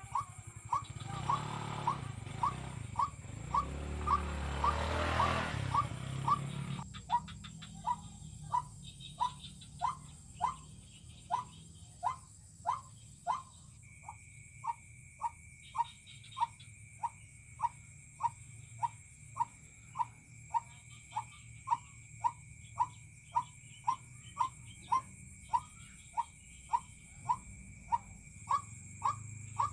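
White-breasted waterhen (ruak-ruak) calling: one short note repeated steadily about twice a second. A swelling noise runs under it for the first few seconds, and a steady high whine joins about halfway.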